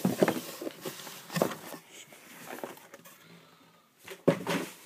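Handling noises: a few sharp knocks and rustles as the RC monster truck is picked up and moved about, the loudest knock about four seconds in.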